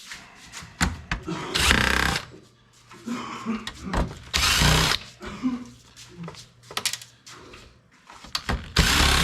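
Power drill run in three short bursts of about half a second each, driving out Phillips screws while a computer is taken apart for scrap, with small clicks and knocks between.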